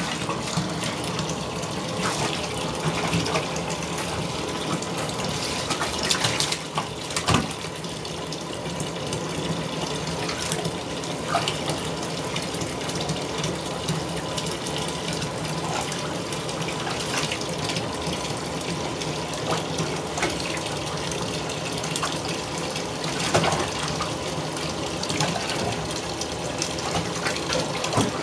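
Bathtub faucet running steadily into shallow water in the tub, with a few short splashes as a cat slaps at the water.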